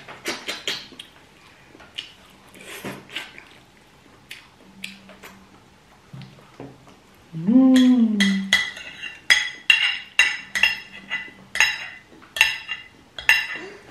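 Metal cutlery clinking and scraping against dishes during a meal: a few light clicks at first, then, after a short hummed voice sound about halfway through, a quick run of sharp ringing clinks, about two a second.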